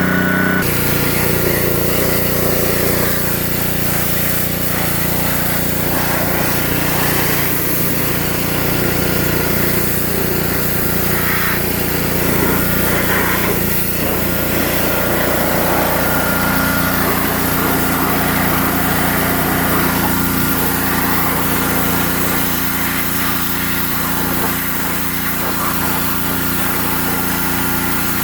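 Gas pressure washer's small engine running steadily while its high-pressure spray hisses against the side-by-side, the spray starting about half a second in.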